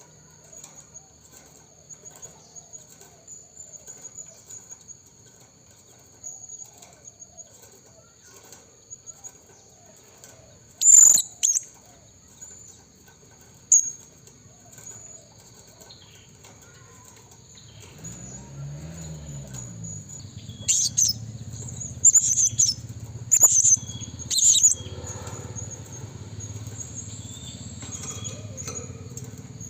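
Blue-crowned hanging parrots (serindit) giving short, sharp, high-pitched calls: two separate calls about a third of the way in and a quick run of four after the middle. A steady high whine runs underneath, and a low hum comes in a little past the middle.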